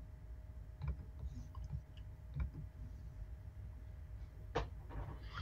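A few faint, scattered clicks of someone working a computer, spaced out over several seconds, over a low steady room hum.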